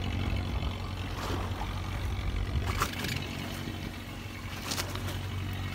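Fishing boat's engine running steadily with a low hum, heard on deck, with a few short knocks over it.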